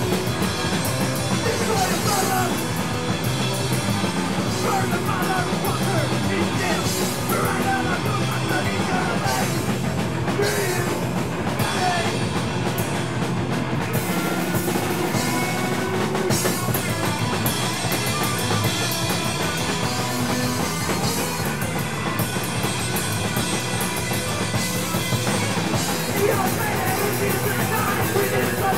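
Hardcore punk band playing live, with drum kit and guitars.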